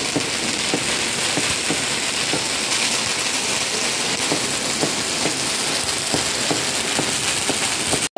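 Ground fireworks going off continuously: a steady hissing crackle made of many small rapid pops.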